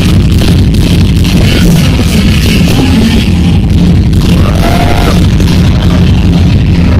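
Loud music with heavy bass throughout.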